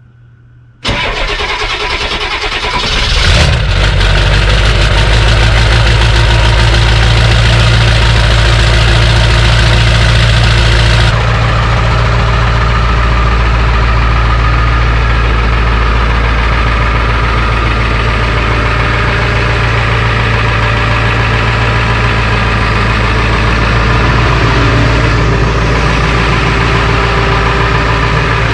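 1999 Ford F-250's 7.3 Power Stroke V8 turbo-diesel cold-started after sitting about three weeks: it starts about a second in, builds for a couple of seconds, and settles into a steady idle.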